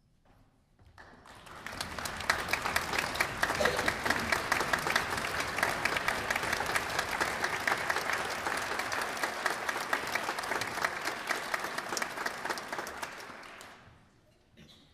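Audience applauding, swelling up about a second in and dying away near the end.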